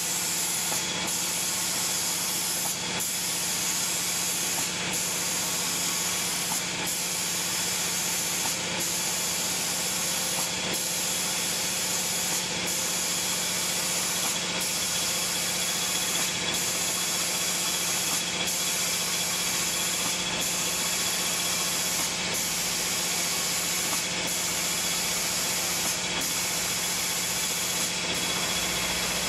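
Automatic door-painting machine's spray gun hissing steadily, its hiss breaking off briefly about every two seconds, over a steady low machine hum.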